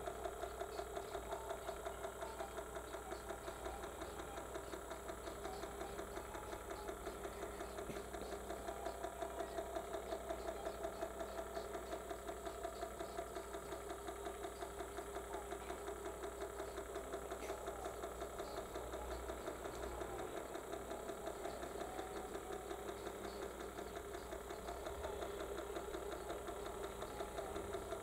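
Small electric motor of a rotating display turntable running steadily, with a fast, regular knocking pulse and a steady hum.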